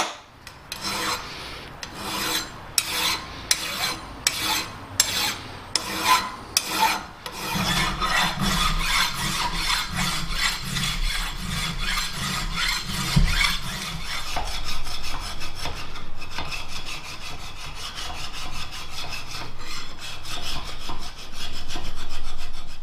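Hand file strokes on the metal tool lantern of a shaper tool head, dressing down burrs and high spots. The strokes come separately, about two a second, for the first seven seconds, then turn into a faster, continuous scraping that runs on to the end.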